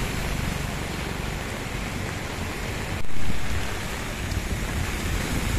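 Heavy rain falling on a flooded road, a steady, even hiss. About three seconds in the sound abruptly gets louder for a moment, then eases back.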